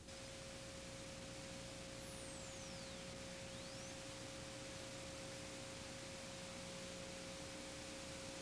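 Steady single-pitch reference tone from an analogue videotape, under tape hiss, accompanying a commercial's slate card. A faint high whistle glides down and back up between about two and four seconds in.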